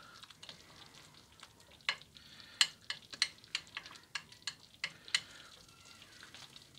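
A metal spoon stirring a simmering curry madras sauce in an ovenproof dish, knocking and scraping against the dish about ten times in a quick series from about two to five seconds in. Under it, the sauce bubbles faintly.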